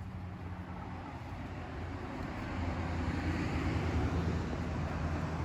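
Low engine-like rumble that builds louder over a few seconds, like a motor vehicle approaching or passing.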